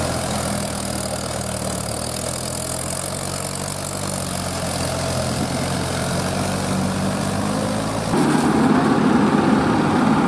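Tractor diesel engine running steadily; about eight seconds in, the sound jumps abruptly to a louder, rougher engine noise.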